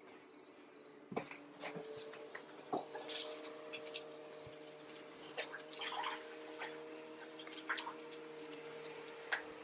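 A cricket chirping steadily, a short high chirp about three times a second. Light clicks and knocks of a ceramic dish and food being handled on a gas grill, and a steady hum that starts about one and a half seconds in.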